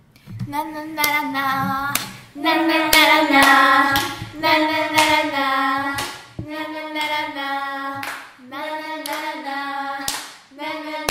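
Singing voices holding a string of steady notes, with sharp hand claps between the phrases.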